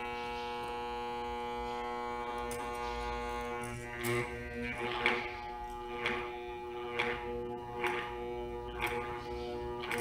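Armature growler humming steadily, with a hacksaw blade held over the armature during a test for shorted coils. From about four seconds in, a short rattle or tick comes about once a second as the armature is turned under the blade.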